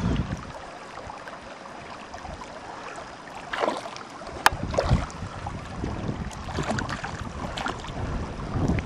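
Wind gusting over the microphone in uneven low rumbles, easing off briefly and building again, with one sharp click about four and a half seconds in.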